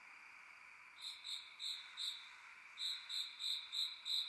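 Night chorus: a steady hum of insects, and from about a second in, a nearby creature chirping loudly in short high notes about three times a second, with one brief pause.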